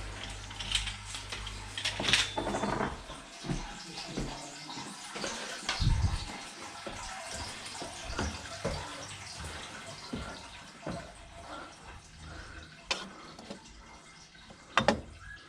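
Scattered, irregular knocks and clicks with a faint watery trickle; a low hum cuts off about three seconds in.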